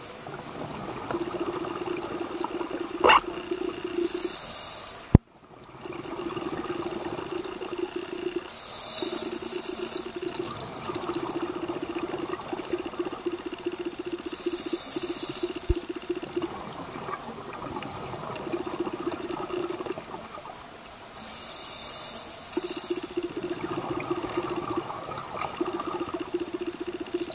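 Scuba diver breathing through a regulator underwater: four short hissing inhalations a few seconds apart, each followed by a long crackling rattle of exhaled bubbles. A sharp click about five seconds in.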